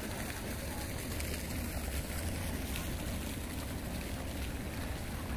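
Wind buffeting the microphone outdoors: an uneven low rumble over a steady hiss.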